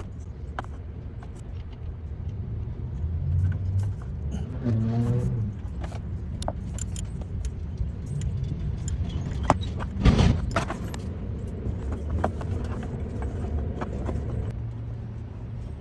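Metal hand tools and parts clinking and rattling during work on a truck's engine pulley and drive belt, with one louder knock about ten seconds in. Under it runs a low steady rumble of road traffic.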